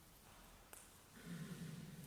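Near silence: faint room tone, with a single light click, then a brief low, faint sound in the second half.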